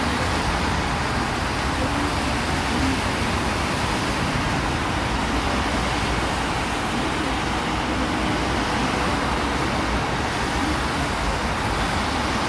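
Steady road traffic noise of a busy city street: cars running past in an even, unbroken wash of sound.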